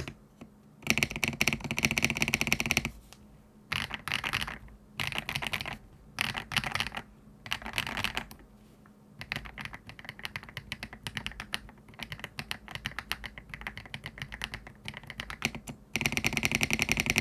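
Typing on an Aula F87 Pro foam-filled mechanical keyboard fitted with HMX Hibiscus linear switches. Fast runs of keystrokes come in bursts with short pauses between them, slower separate keystrokes follow in the middle, and another fast run comes near the end.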